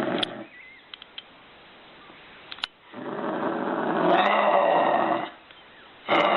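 A farm animal calling: long, rough, low calls, about two seconds each, with a quiet gap between them.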